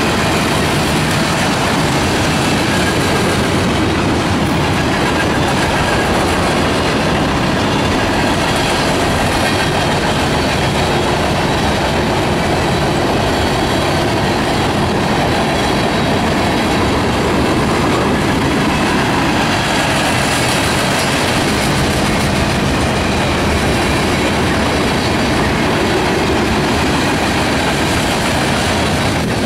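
Freight train of tank cars and covered hoppers rolling past close by: a loud, steady rumble of steel wheels running on the rails.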